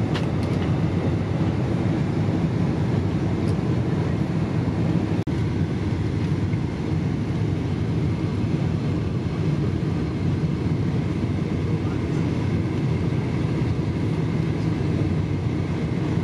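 Steady cabin roar of a Boeing 747-400 airliner on its descent, engine and airflow noise heavy in the low end, with a brief dropout about five seconds in.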